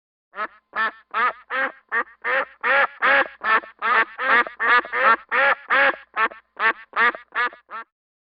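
Duck quacking in a steady run of about twenty quacks, two or three a second.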